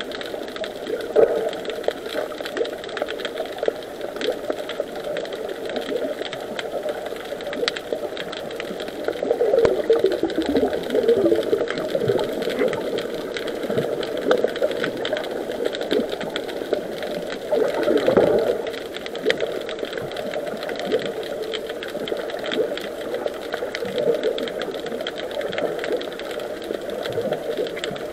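Muffled underwater noise picked up through an action camera's waterproof housing: a continuous machine-like drone with fine crackling clicks, swelling and sliding down in pitch twice, about ten and eighteen seconds in.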